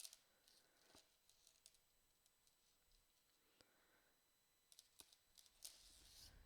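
Near silence broken by faint scattered clicks and light rustling from handling a chain necklace with little bead accents and the small bag it came in.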